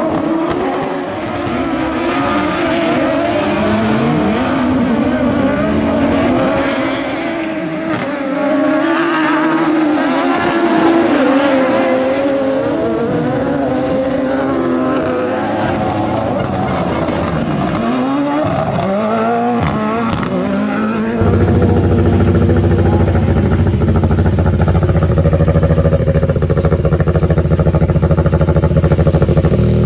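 Turbocharged Ford 939 cc engine of a Buggy 1600 autocross car on track, its revs rising and falling again and again through gear changes and corners. About two thirds of the way through the sound switches abruptly to a steady, louder, low engine note.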